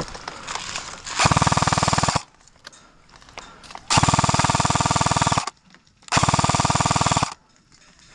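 S&T M249 airsoft electric gun (AEG) firing three full-auto bursts: a rapid, even clatter from the gearbox with a steady motor whine. The bursts last about a second, a second and a half, and just over a second, with short pauses between them.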